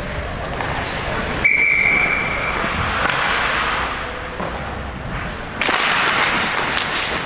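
Ice hockey referee's whistle blown once, a single steady high note of about a second, stopping play, over steady rink noise that jumps louder near the end.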